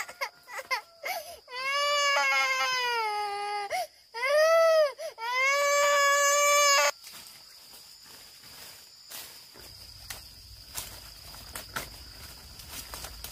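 A baby crying in long wails that rise and fall in pitch, with short breaks between them. About seven seconds in the crying stops, and only faint clicks and a steady high hum remain.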